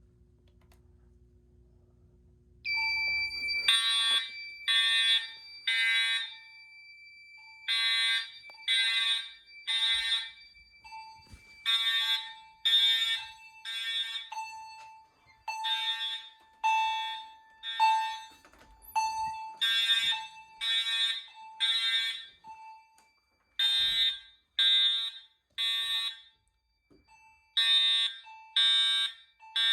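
Fire alarm horns sounding together in the temporal-three evacuation pattern, set off by a heat detector being triggered: three blasts a second apart, a pause, then again, repeating about every four seconds. A steady high tone comes in about three seconds in, just before the first blasts.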